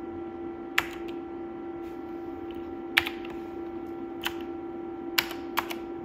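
Scattered keystrokes on the Dolch PAC 60 portable computer's keyboard: single clicks spaced a second or more apart, then a quick few near the end, over a steady hum.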